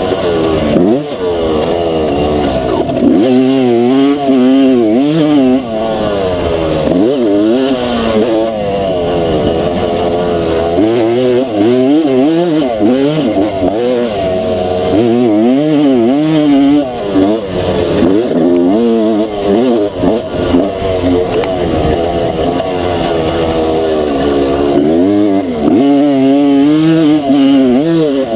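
Honda CR250 single-cylinder two-stroke motocross engine heard from on the bike, revving hard and dropping back over and over with throttle and gear changes as it is ridden flat out.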